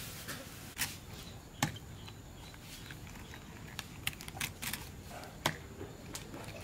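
A head of green cabbage being pulled apart by hand: its crisp leaves snap and tear in short sharp cracks, a few scattered early and several bunched together past the middle.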